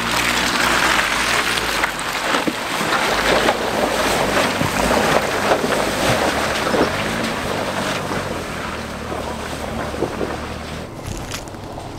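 A vehicle's engine running and revving as it drives through mud and water, with a heavy wash of splashing and wind on the microphone.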